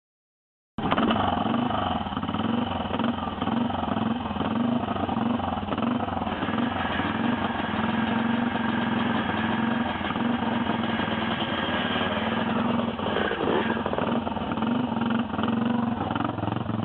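BSA 441 Victor's single-cylinder four-stroke engine idling steadily, cutting in abruptly just under a second in.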